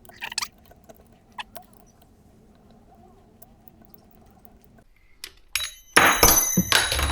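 Small metal starter-motor parts and tools clicking lightly, then, about five seconds in, clinking and clattering loudly with a brief metallic ring.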